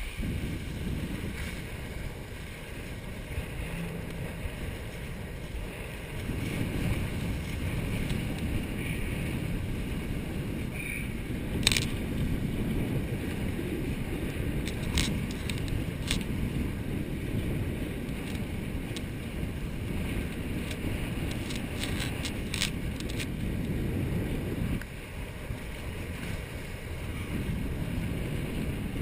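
Wind buffeting the microphone and water rushing past the hulls of a Hobie 18 catamaran sailing fast, a steady low rumbling noise. A few sharp ticks come through in the middle stretch.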